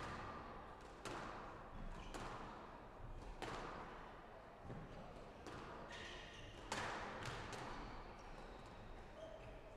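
Squash rally on a glass-walled court: the ball struck by rackets and smacking the walls, sharp knocks every second or so, each with a ringing echo in the hall. Between the knocks come a few short squeaks of shoes on the wooden court floor.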